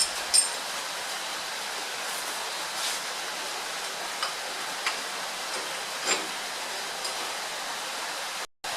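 Steady hiss with a few short, light clicks and taps scattered through it, as parts of the rear axle assembly are handled.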